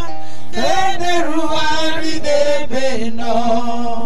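A worship leader singing a slow, chant-like worship song through the church sound system, sliding between long held notes and settling on a lower held note near the end.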